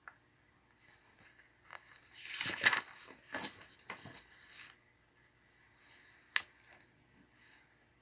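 Paper rustling and crinkling for a couple of seconds, as workbook pages are handled, then two short sharp clicks near the end.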